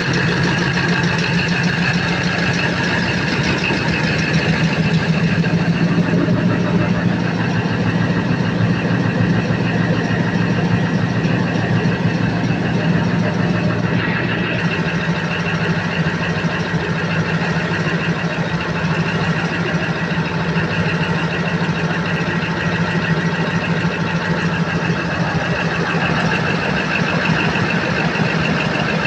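Freshly overhauled Cummins KTA50 V16 diesel engine idling steadily, a dense, even run of rapid firing pulses on a test run after rebuild.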